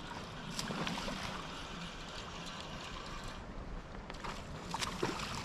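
Shallow creek water rushing and lapping, with scattered small clicks and knocks close by.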